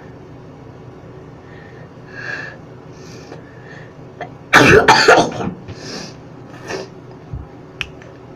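A person's attempt to burp while sneezing: a couple of soft breaths, then one loud sudden cough-like sneeze about four and a half seconds in, with no burp coming, followed by a few quieter breaths.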